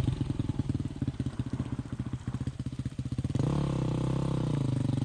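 Dual-sport motorcycle engine running with fast, distinct firing pulses at low revs, then revving up about three and a half seconds in and holding a higher, steady pitch.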